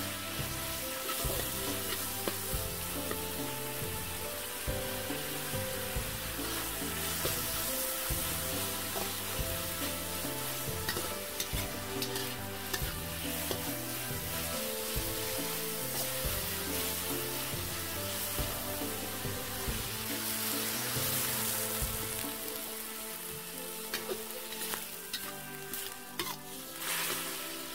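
Meat, garlic and chillies sizzling hard in a smoking-hot wok, with a metal spatula stirring and tapping against the wok in scattered clicks. Background music plays underneath.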